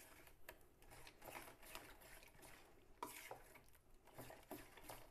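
Faint, uneven stirring strokes of thick flour-and-water pakora batter being beaten in a bowl to work out the lumps.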